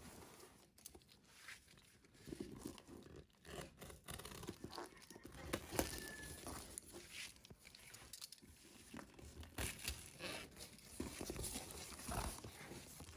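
Box cutter slitting and scraping through plastic packing tape on a cardboard box, with crinkling of the tape and cardboard in faint, irregular strokes.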